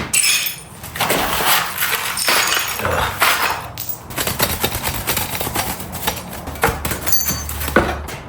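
Clattering and knocking of tools and gear being gathered up and handled, with rustling throughout and a couple of sharper knocks near the end.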